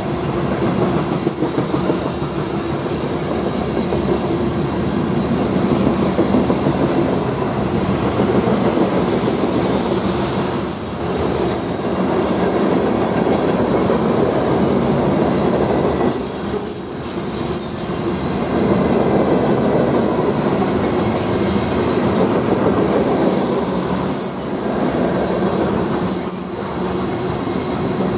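Loaded sand train of covered hopper cars rolling past at speed: a steady rumble and clatter of steel wheels on the rails, with brief high-pitched wheel squeals several times.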